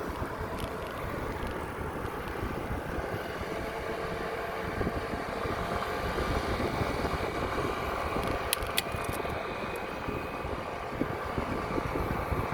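Riding noise from a moving bicycle: wind rushing over the microphone over the steady rumble of road traffic. Two sharp clicks come about two-thirds of the way through.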